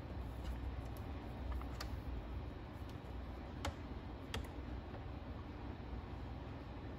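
Faint steady low hum with a few small, sharp clicks, about three, from small hand tools working on a phone circuit board.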